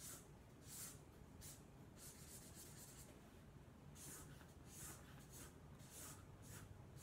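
Sharpie markers rubbing across the paper of a flip-chart pad in quick colouring strokes, about one every half second to a second, with a longer run of strokes two to three seconds in. The sound is faint.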